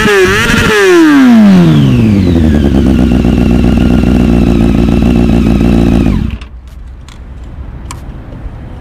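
Honda CBR600F4i's inline-four engine through a Coffman's shorty exhaust: a rev that falls back to a steady idle within about two seconds, then the engine stops abruptly about six seconds in, leaving a few quieter clicks.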